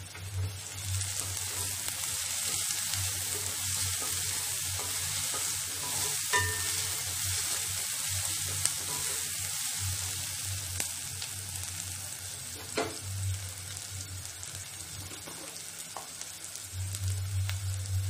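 Chopped onions with ginger-garlic paste and garam masala sizzling in hot oil in a non-stick kadai, stirred with a wooden spatula that scrapes and taps against the pan a few times.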